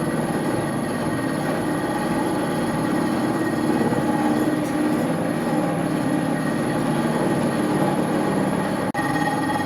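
Amen universal milling machine running: a steady mechanical drone with a constant whine from its motor and gearing. The sound drops out for an instant near the end.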